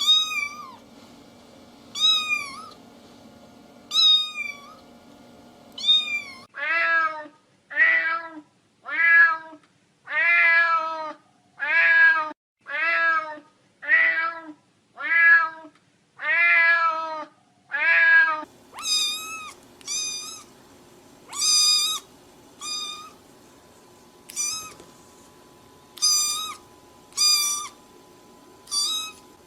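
Cats meowing over and over, one call after another. It starts with high, short meows about every two seconds, then about six seconds in a lower-voiced cat takes over, meowing about once a second. Near the two-thirds mark, high-pitched meows come back at a quicker, uneven pace.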